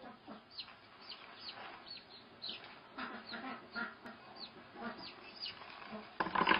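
A lost baby chick peeping: repeated short, high cheeps that fall in pitch, about two a second, with a brief louder rustle near the end.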